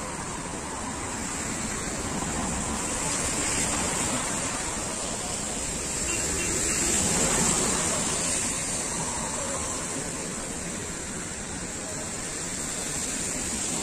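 City traffic on wet roads: a steady hiss of tyres on wet asphalt with engine rumble, swelling as a vehicle passes about seven seconds in.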